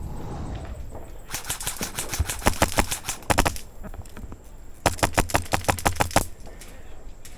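Airsoft guns firing in two rapid full-auto bursts of sharp clicks, the second shorter than the first.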